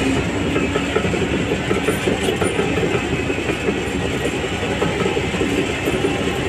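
Shantui DH17C3 crawler bulldozer at work: its diesel engine running steadily under load with a continuous fast clatter of the steel tracks.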